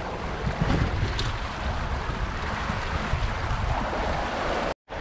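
Wind buffeting the microphone and water rushing along the hull of a racing yacht under sail, a steady rushing noise that cuts out for a moment near the end.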